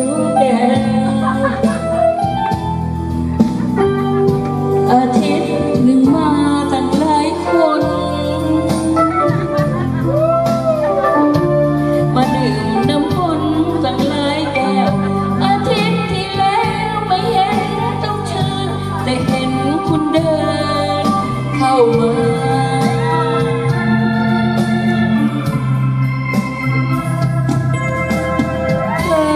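Amplified music: a singer carrying a wavering, gliding melody over held electronic-keyboard chords, playing without a break.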